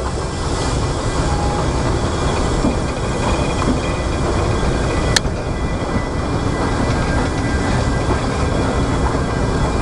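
Narrow-gauge train carriage running along the track, heard from its open window: a steady rumble and hiss, with one sharp click about five seconds in.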